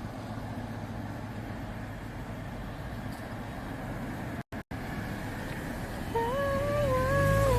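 Steady road-traffic noise, with the audio cutting out twice for an instant about halfway through. In the last second or so a loud wavering, pitched sound that steps up and down comes in over it.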